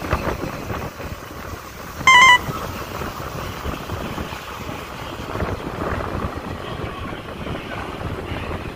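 Running noise of a JNR 185 series electric train heard through its open window as it rolls into a station. About two seconds in, a brief wavering tone sounds once, louder than everything else.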